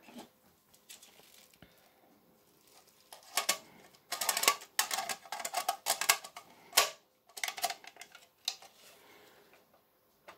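Plastic housing of a Sonos DC fire-alarm sounder being handled and twisted by hand: a quick run of clicks, taps and rattles, busiest and loudest through the middle of the stretch. The sounder itself is not yet sounding.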